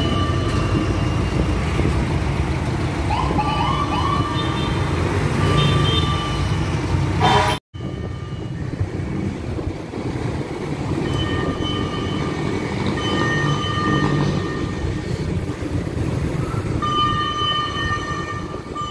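Fire trucks and heavy street traffic passing: a steady rumble of engines, repeated horn blasts, and a few short siren whoops a few seconds in. The sound breaks off for an instant about halfway through.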